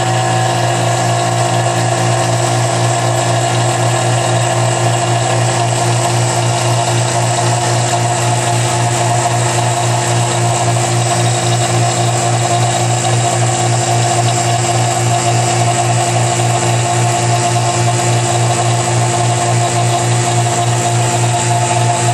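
Electric vacuum pump running steadily with an even hum, drawing a vacuum former's membrane down over heated Kydex to form a holster.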